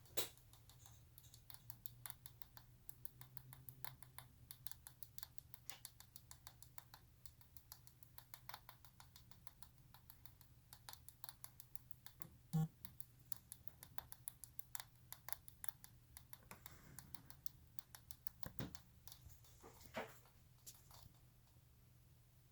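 ASUS ROG PG279Q monitor ticking: faint, irregular rapid clicks, several a second, over a steady low hum, with a few louder knocks along the way. The monitor makes this noise with the PC off and the speakers disabled.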